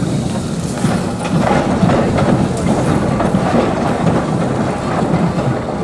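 Small saddle-tank steam locomotive moving off along the track, its running noise and rail clatter growing louder about a second and a half in.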